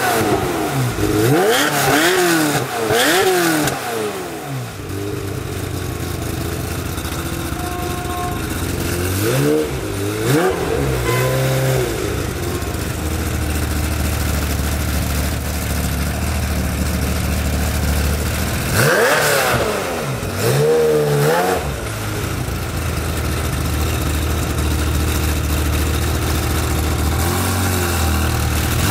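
Ferrari F355's flat-plane-crank V8 breathing through a Tubi exhaust with the catalytic converters bypassed, revved in quick blips that fall back to a steady idle. There are several blips at the start, another pair around ten seconds in, two more around twenty seconds in, and a small one near the end.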